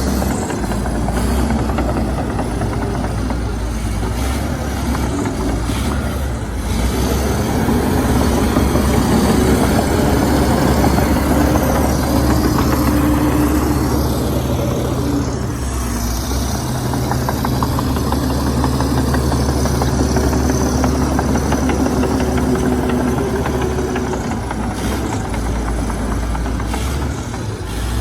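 Heavy diesel engine of a crawler bulldozer working, running continuously with its pitch and load rising and easing as it pushes fill.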